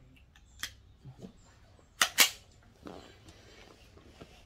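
Armi Jager AP80 .22 rifle firing: a fainter sharp crack just under a second in, then two loud sharp cracks in quick succession about two seconds in.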